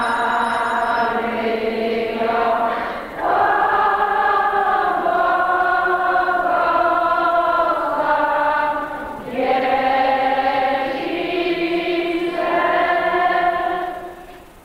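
Choir singing slowly in long held notes, in three phrases with brief breaks between them; it dies away near the end.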